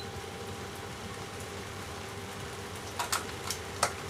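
Steady background hiss with a faint hum, and a few light clicks near the end as a small plastic yeast tub is handled.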